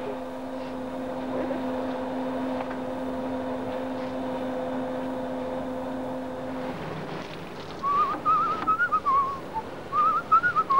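A steady low hum for about the first seven seconds, then a person whistling a short wavering tune in two phrases.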